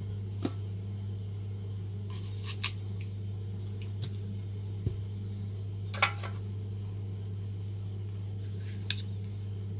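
Scattered sharp clicks and taps of a red plastic strawberry huller being handled and worked on strawberries, about six in all, the loudest about six seconds in, over a steady low hum.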